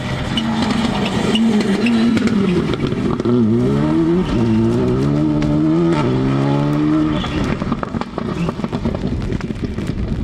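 Rally car engine at high revs: its pitch dips, then climbs hard several times in a row, falling back sharply at each upshift, before the sound drops away near the end.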